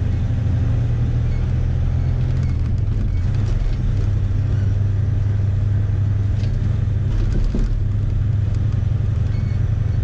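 Freightliner Columbia semi-truck's diesel engine running steadily on the road, a low even rumble with a few faint clicks and rattles around the middle.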